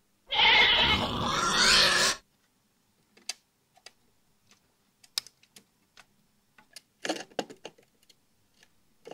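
Loud sizzle lasting about two seconds from a soldering iron melting solder and flux on a tube socket lug. This is followed by scattered light clicks and taps of metal tweezers and pliers setting a resistor's leads onto the lugs.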